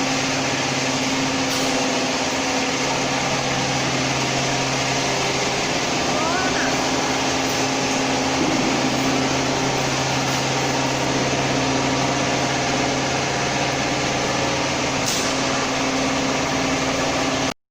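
Steady running noise of a vacuum frying machine: a constant low hum under a broad hiss, cutting off suddenly near the end.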